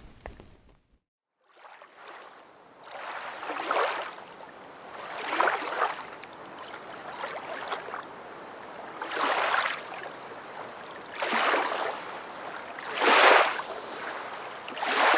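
Rushing water noise, like waves washing in, swelling and fading every two seconds or so; it starts after about a second and a half of silence.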